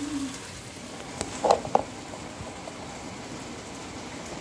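Two sharp clinks of a cooking utensil against a nonstick frying pan, about a second and a half in and a quarter second apart, over a low steady hiss.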